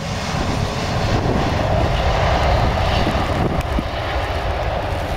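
Lufthansa Airbus A380's four Rolls-Royce Trent 900 turbofans roaring as the jet rolls out along a wet runway after landing; the roar swells about a second and a half in and eases again after a couple of seconds.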